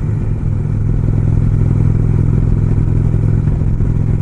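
Indian Springfield's air-cooled V-twin engine running steadily while the motorcycle is under way, a low even rumble with no change in pace.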